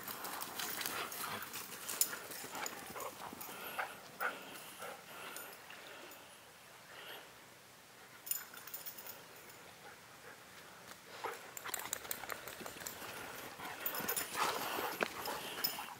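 Huskies running and playing in grass: quick, irregular paw thuds and scuffling. The sound thins out in the middle and picks up again near the end as a dog comes running back.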